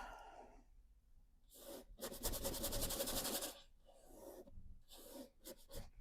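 Oil-painting brush scrubbing in quick strokes: a short stroke at the start, then a longer run of rapid scrubbing about two to three and a half seconds in, and a few shorter strokes near the end.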